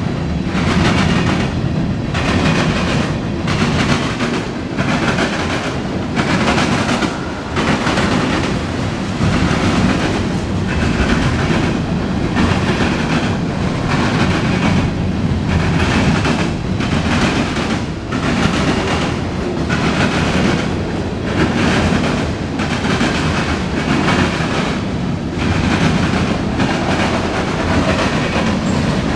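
Loaded freight cars of a mixed freight train, tank cars and covered hoppers, rolling steadily past close by. The wheels rumble on the rails with a regular clickety-clack.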